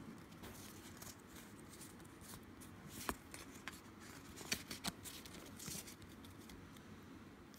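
Trading cards being handled in the hand, slid and shuffled against each other: faint rustling with a few light clicks of card edges, the sharpest about three seconds in and again around four and a half to five seconds.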